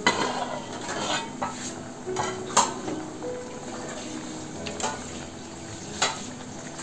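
A metal pot lid is lifted off with a clank. Then mango pieces bubble at the boil in the pot, and a wooden spoon knocks against the pot a few times as they are stirred.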